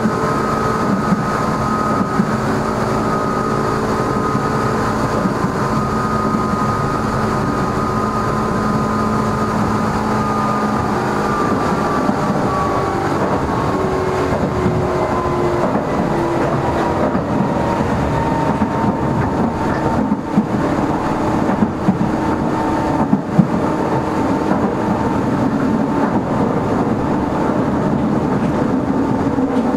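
Meitetsu 6000 series electric train running, heard from inside the car: motor whine over the rumble of wheels on rail, the whine slowly falling in pitch as the train slows. A few sharp knocks come about two-thirds of the way through.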